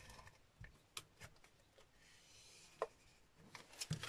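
Faint handling sounds of cardstock and a tape-runner adhesive: a few small clicks and taps, with a soft rubbing hiss for about a second in the middle as tape is laid on the paper.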